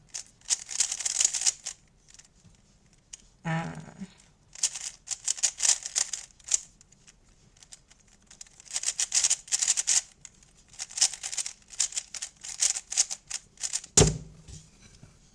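Non-magnetic GAN 356 RS 2 speed cube, still unlubed, being turned fast in a timed solve: rapid plastic clacking of layer turns in bursts with short pauses between them. A single sharp knock near the end.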